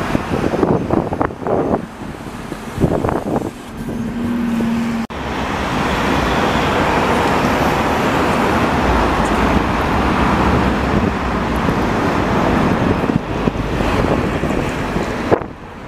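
Street traffic noise with wind gusting on the microphone. After a cut about five seconds in, a vehicle runs past close by as a loud, steady rush of noise for about ten seconds.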